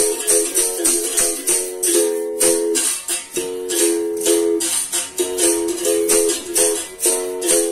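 Berimbau gunga being played in a steady rhythm: the stick strikes the wire and the gourd rings with harmonics, alternating between a low and a high note, each stroke with the shake of the caxixi rattle.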